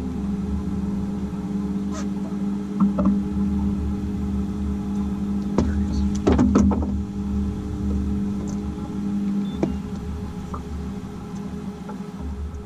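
Boat motor running steadily at trolling speed, a low hum with fixed tones, with a few sharp clicks from fishing-rod and reel handling, the busiest cluster about six seconds in.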